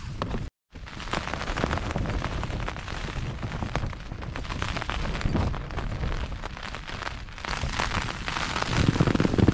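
Heavy rain and strong wind gusts beating on the Hilleberg Akto tent's flysheet, heard from inside, with the fabric flapping in a dense, uneven patter. The sound cuts out briefly about half a second in, and a stronger gust surges near the end.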